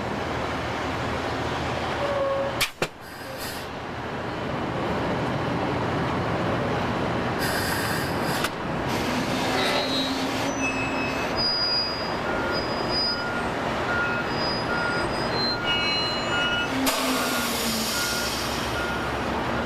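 Heavy diesel construction machinery running steadily, with a sharp knock a few seconds in. A backup alarm beeps at an even pace through the last several seconds.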